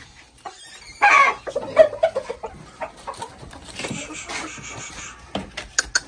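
Gamefowl chickens calling: a loud call about a second in, followed by a quick run of shorter clucking calls. A few sharp clicks come near the end.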